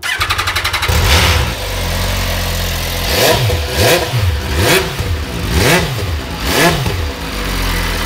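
MV Agusta F3 800's inline three-cylinder engine cranked on the electric starter for about a second, catching and settling to idle. It is then blipped five times, each rev rising and falling quickly, before dropping back to idle; the owner calls it "such a good noise".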